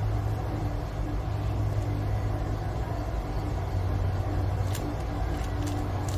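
Steady low rumbling hum throughout, with a few faint clicks near the end from a Rubik's Cube being turned.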